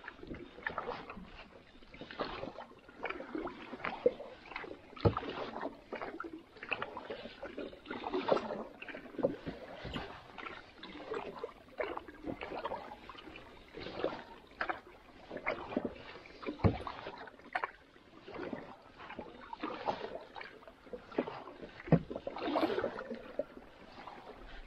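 Canoe paddle strokes: the blade dips and pulls through calm water again and again, a swirl of water every second or two. A few sharp knocks stand out now and then.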